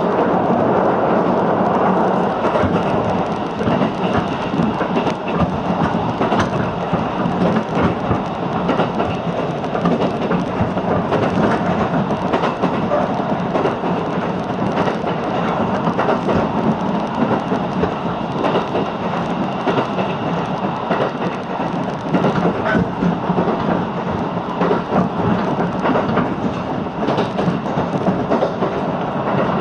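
Electric train running along the line, heard from inside the carriage: a steady rumble of wheels on rail with many small rattles and ticks.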